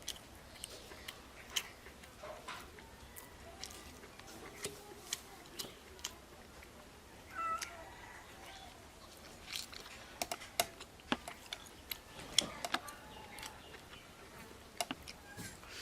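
Close-up eating sounds: crunchy bites and chewing, with scattered sharp clicks of food and fingers against the plate, busiest in the second half. A few short mewing cries come about halfway through.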